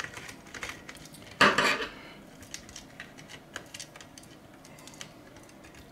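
Clicks and light clatter of small hard parts as a multimeter's circuit board and plastic case are handled and lifted apart, with one louder clatter about a second and a half in.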